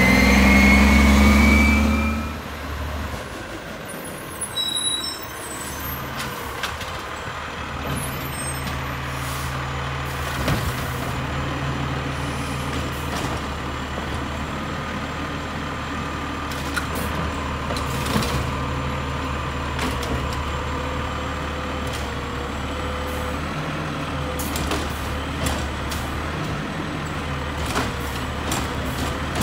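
Mack Condor automated side-loader garbage trucks: first one revs up loudly as it pulls away, with a rising whine, then after a cut another runs steadily at the curb, its note lifting briefly a couple of times as its arm works a cart, with a few knocks and clunks.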